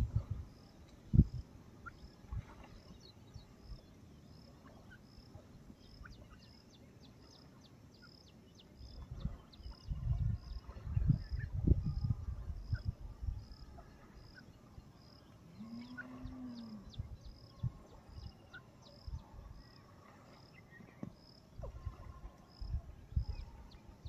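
Grey francolins pecking and scratching at loose soil, heard as dull low thumps and rustles that come in bunches about ten seconds in and again near the end. A faint high chirp repeats evenly about every two-thirds of a second, and a distant cow moos once about two-thirds of the way through.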